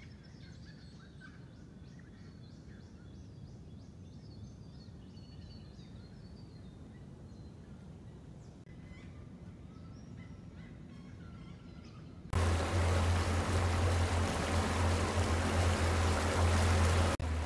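Birds calling faintly, with a quick run of high chirps in the first few seconds. About twelve seconds in it cuts suddenly to a small boat under way on the river: a loud, even rush of wind and water over a steady low motor hum.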